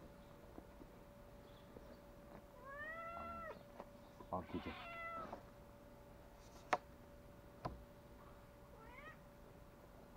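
Domestic cat meowing three times: two long, drawn-out meows that rise and fall in pitch, then a short one near the end. Two sharp knocks come between them.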